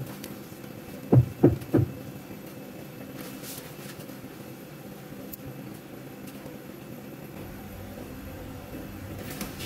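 Three quick dull thumps about a second in, roughly a third of a second apart, then a faint steady hum.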